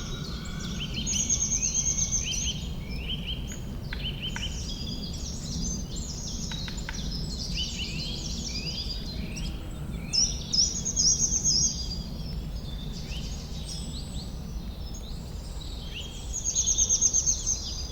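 Forest ambience of several songbirds singing and chirping in quick overlapping phrases, with a fast high trill that comes three times, over a steady low background rumble.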